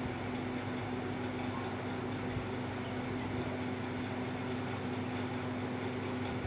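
Steady background hum with a constant low drone and an even hiss, unchanging throughout.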